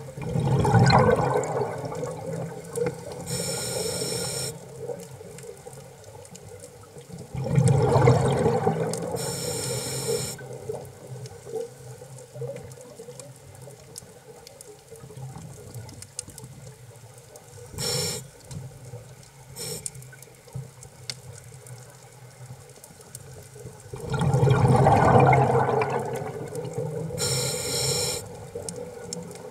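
Scuba regulator breathing heard underwater: three long gurgling bursts of exhaled bubbles, each followed a couple of seconds later by a shorter hiss, over a low steady underwater hiss.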